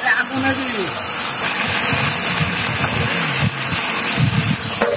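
Mutton sizzling as it fries in a large aluminium pot over a wood fire, a steady hiss, with people's voices over it.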